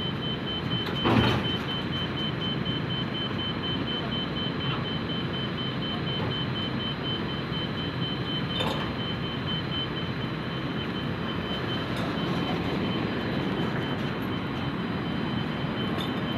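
Forklift at work lifting an oil drum: a steady mechanical running noise under a repeating high warning beep. A metal clank sounds about a second in, with a few lighter knocks later.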